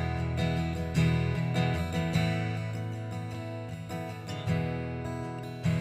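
Church worship band playing an instrumental passage between sung lines, led by strummed acoustic guitar over held chords, with a strong strum roughly every second.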